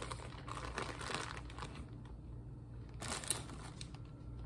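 A thin clear plastic bag crinkling as it is handled and pulled open, most in the first two seconds, with another short crinkle and a sharp click about three seconds in.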